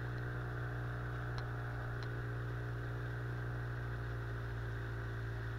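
Boat's outboard motor running at a steady, unchanging pitch as the boat cruises upriver. Two faint clicks sound about a second and a half and two seconds in.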